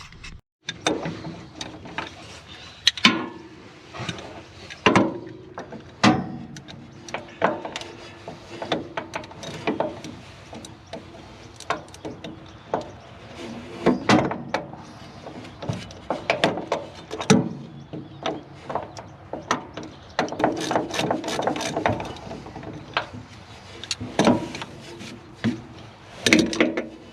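Hand-tool work on a swather's broken driveline: irregular metal clanks, knocks and scrapes of tools and driveline parts being handled, busier toward the end.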